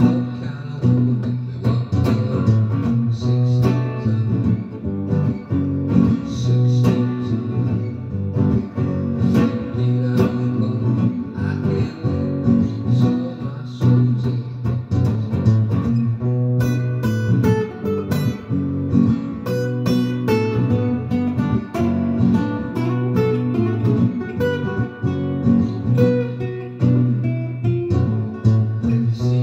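Acoustic guitar strummed in a steady rhythm, chords ringing on between the strokes.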